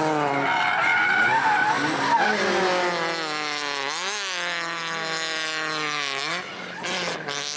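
Drift car engine held high in the revs with its tyres skidding. About halfway through the engine pitch dips and then climbs back up, and it rises again shortly after.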